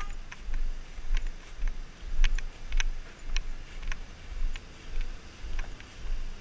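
Gusty wind rumbling and buffeting on the microphone in uneven pulses, with scattered light clicks and rattles.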